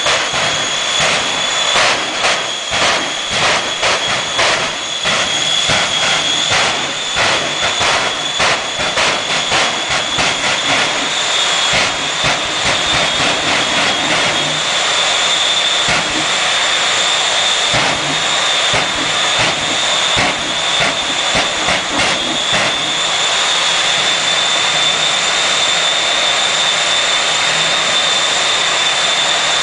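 Jet engines of two jet trucks running loud at the drag strip start line, with a steady high whine. Rapid irregular crackling runs through the first two-thirds, then the sound settles into a smoother, even run near the end.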